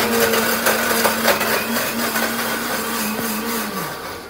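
Electric mixer grinder with a stainless steel jar running at a steady pitch, then spinning down and stopping near the end.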